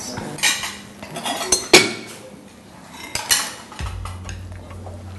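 Plates and cutlery clinking as dishes are cleared and stacked on a dinner table, a few separate knocks with the loudest a little under two seconds in. A low steady hum comes in near the end.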